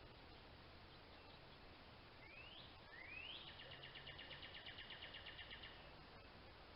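Faint songbird song: two quick rising whistled notes, then a rapid even trill of about ten notes a second lasting a little over two seconds.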